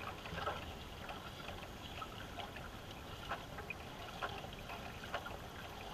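Canoe paddles dipping and pulling through the water, with scattered small splashes and drips over a steady trickle of water along the hull.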